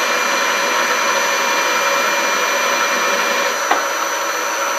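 Harrison M250 metal lathe running with its chuck spinning: a steady whir with several constant high whining tones. A single sharp click comes about three and a half seconds in.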